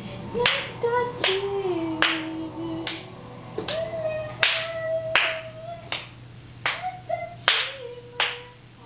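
Steady rhythmic hand clapping, about four claps every three seconds, with a voice singing long held notes along with it.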